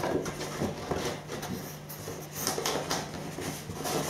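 Cardboard packaging box being handled and closed up: a string of soft rustles, scrapes and light knocks of cardboard.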